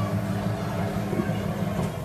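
Nissan 180SX engine running with a steady low hum, which drops away near the end.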